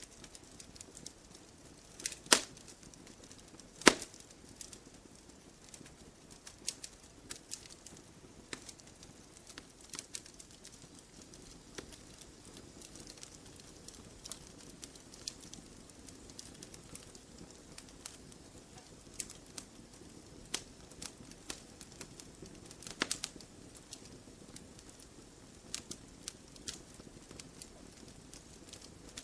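Campfire logs burning: a soft steady burn underneath scattered snaps and crackles from the wood. Two much louder pops come a couple of seconds apart in the first four seconds, and another comes a little after twenty seconds in.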